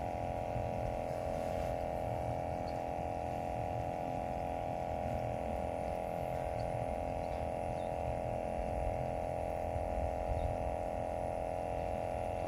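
A steady, unbroken hum sitting in the middle of the range, over a low rumble.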